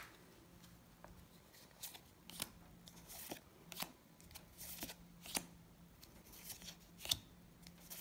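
Trading cards from a freshly opened Magic: The Gathering booster pack being flipped through one by one: faint, irregular swishes and clicks as each card slides off the stack.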